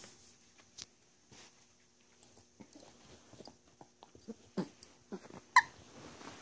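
Small dogs at play: light scuffling and paw taps, a short low grunt about four and a half seconds in and a brief high yip about a second later.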